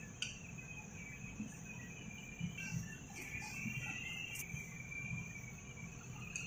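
Steady, high-pitched chirring of crickets, over soft squelches of hands kneading spiced minced meat in a steel bowl.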